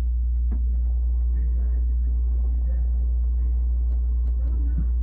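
A loud steady low hum, with faint indistinct voices underneath and a single click about half a second in.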